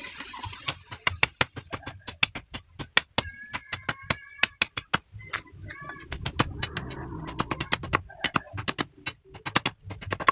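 A sickle blade striking and chopping at a green bamboo pole over and over, sharp knocks several a second. A bird calls in the background with short whistled notes a few seconds in.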